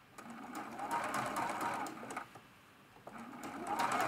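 Juki sewing machine stitching in two short runs with a brief stop between. Its bobbin area has just been cleared of a ball of lint that had made it squeak.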